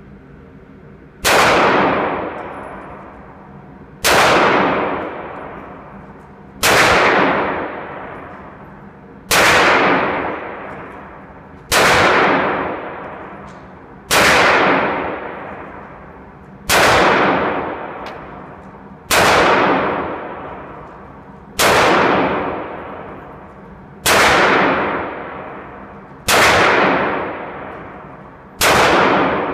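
Beretta 92FS 9 mm pistol fired slowly in single action: twelve shots about two and a half seconds apart, each with a long echo off the walls of an indoor range.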